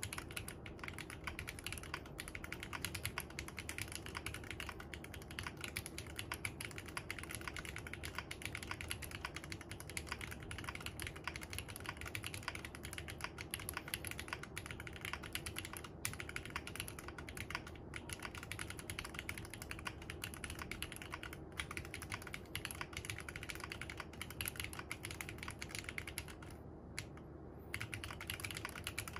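Mechanical keyboard being typed on fast and without a break in a sound test, a dense stream of key clacks with a brief lull near the end.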